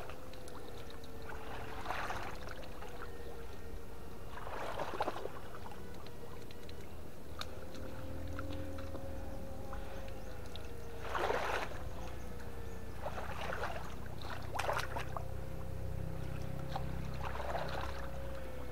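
River water splashing and sloshing every few seconds, as when someone wades and sweeps a net or probe through the water, over a steady low rumble and a thin, steady high hum.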